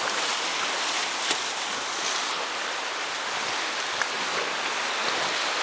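Whitewater river rapids rushing steadily around an inflatable raft, a constant hiss of churning water.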